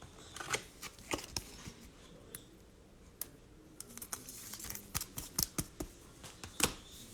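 Trading cards being handled and flipped through by hand: a scatter of soft clicks and slides, coming quicker in the second half, with one louder snap near the end.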